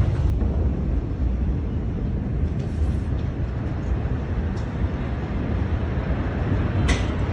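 Steady low rumbling noise, with a faint click or two.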